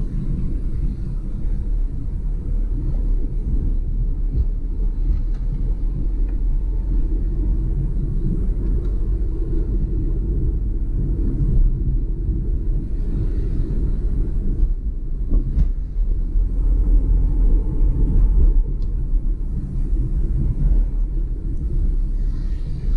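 Cabin noise of a Renault Kwid's 0.8-litre three-cylinder petrol engine and its tyres on a wet road, heard from inside the car: a steady low rumble while driving at low speed.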